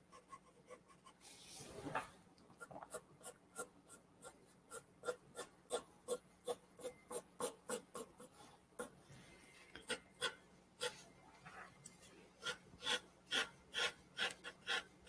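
Graphite pencil shading on drawing paper: a run of short, rhythmic scratching strokes, about two to three a second, louder in the last few seconds.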